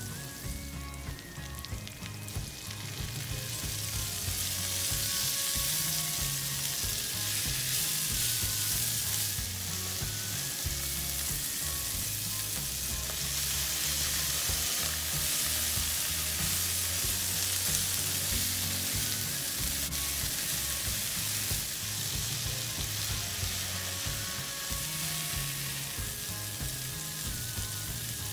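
Onion, garlic and habanero, and then mint leaves, sizzling in hot oil in a stainless steel frying pan as they are stirred with a spatula. The sizzle grows louder a few seconds in and stays steady.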